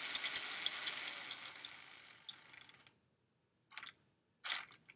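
Spinning weapon of a VEX Robotics Bite Force kit robot running with a fast clicking rattle that winds down and stops about three seconds in, followed by three short bursts as it is briefly run again.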